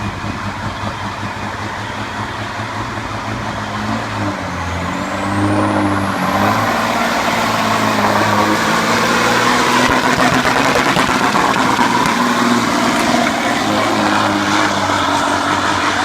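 2001 Peterbilt semi's diesel engine pulling a sled under full load. It grows louder about five seconds in, as a high whistle rises and then holds high over the engine.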